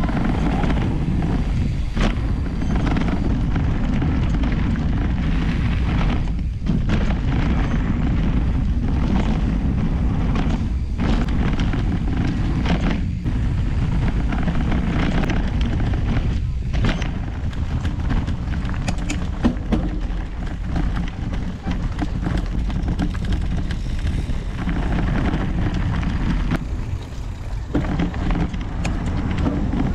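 Mountain bike ridden down dirt and rocky singletrack: steady low wind noise buffeting a bike-mounted camera's microphone, with knobby tyres rolling on dirt and occasional sharp knocks and rattles as the bike goes over roots and rocks.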